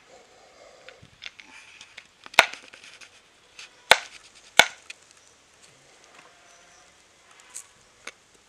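A large knife chopping raw green plantains on a wooden cutting board: a string of sharp chops, three loud ones in the middle and several lighter ones, with quiet scraping and rustling between.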